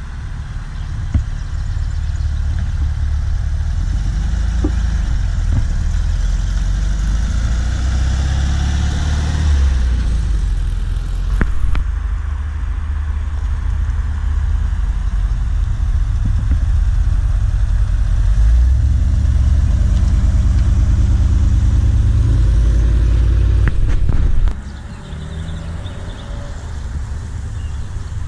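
Deep, loud exhaust rumble of car engines running at low speed, the pitch shifting a little as they move. It drops off sharply near the end.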